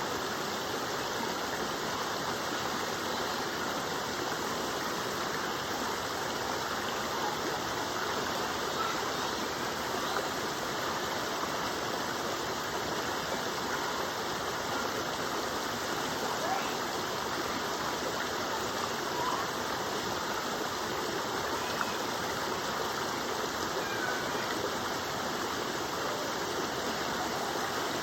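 Waterfall and stream water rushing: a steady, even roar of falling and running water.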